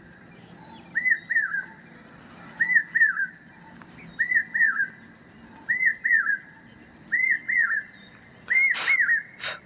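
Dawn birdsong: one bird repeats a short phrase of two or three clear whistled notes about every second and a half, with faint, higher chirps from other small birds behind it.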